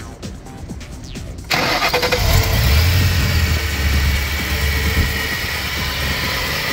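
Electronic music cuts off about a second and a half in. A 2009 Ford Mustang GT California Special's supercharged 4.6-litre V8 then starts and settles into a steady idle.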